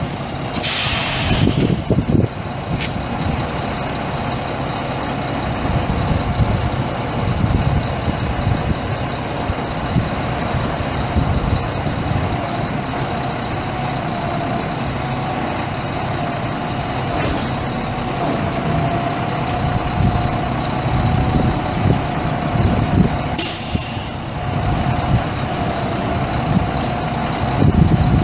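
Mack EM7 12.0L inline-six turbo diesel of a 1999 Mack DM690S hooklift truck running steadily with a steady whine over it. Two short hisses of released air from the truck's air system, about a second in and again about four seconds before the end.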